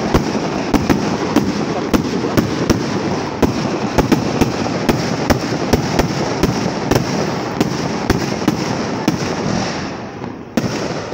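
Aerial fireworks going off in quick succession, a dense run of bangs and crackles. It eases briefly near the end, then one loud bang comes about ten and a half seconds in.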